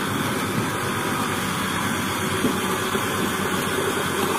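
Heavy truck engine running under a steady rush of churning water as the crane truck drives through deep water.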